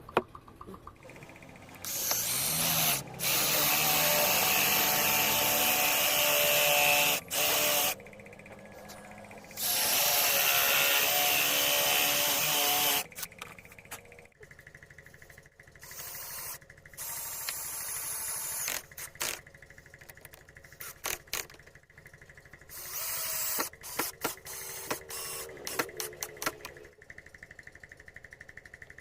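Power tool working wood in three long runs, the first rising in pitch as it spins up, followed by a series of short bursts, knocks and clicks.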